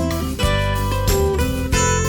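Background music: acoustic guitar with chords changing about every half second to second.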